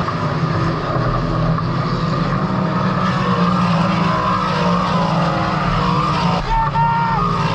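Sprint car engines running in a loud, steady drone.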